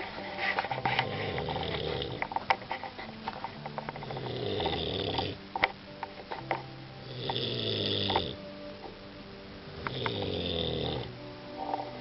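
A man snoring, four long rumbling snores about three seconds apart.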